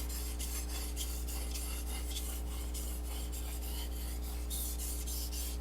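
Chef knife blade stroked quickly back and forth on a sharpening stone, a rhythmic gritty rasp of several strokes a second.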